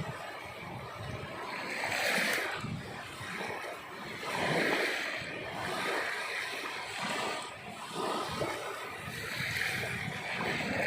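Sea waves washing in, a steady rush of surf that swells about every two seconds.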